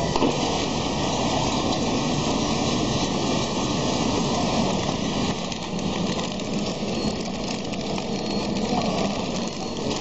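Power cord and data cable packing machine running: a steady mechanical din with faint scattered clicks.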